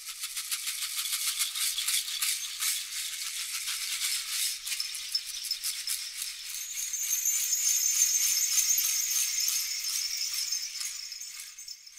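Dense, high rattling and jingling, as from a shaken rattle of small metal jingles, swelling in. About halfway through a steady high shimmer joins it, and both fade away near the end.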